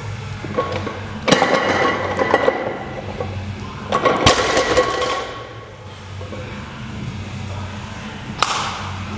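Rubber-and-steel Rogue bumper plates on a 260 kg barbell knocking down on the gym floor between deadlift reps: three knocks about three seconds apart, the first two the loudest.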